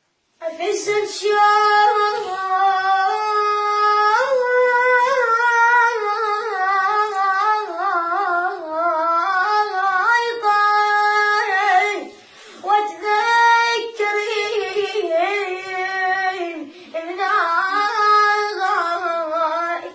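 A high solo voice singing a Shia lament (latmiya) unaccompanied, in long ornamented phrases, with brief breaths about twelve and seventeen seconds in.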